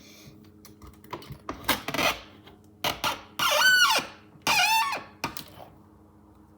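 Two loud, high-pitched squeaks, each about half a second long and falling in pitch, among scattered knocks and rustling.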